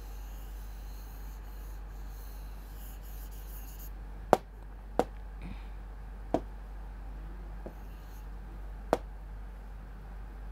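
Writing and drawing by hand: a faint scratching for the first few seconds, then five short sharp taps spread over the rest, the first about four seconds in.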